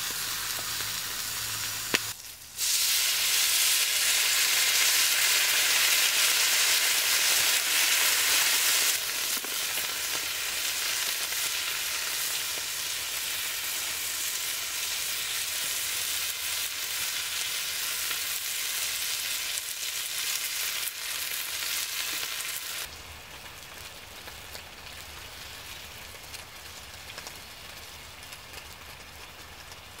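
Brussels sprouts in olive oil sizzling in a frying pan over campfire coals. The sizzle is a steady hiss that gets louder a couple of seconds in and falls to a quieter sizzle near the end.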